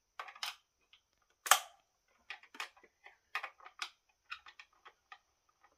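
Irregular sharp clicks and clacks of hands and a small hand tool working at the plastic housing of an ECHO CS-4310SX chainsaw, the loudest knock about one and a half seconds in.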